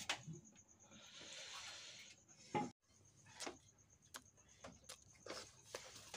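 Faint, scattered clicks and small rubbing sounds of fingers mixing rice and fish on china plates, eating by hand; a soft hiss for about a second, about a second in.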